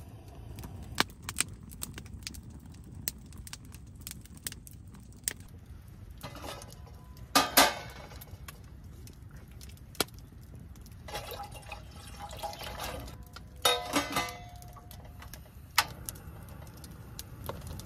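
Wood campfire crackling, with irregular sharp pops and snaps. Two louder short noises break in about seven and fourteen seconds in.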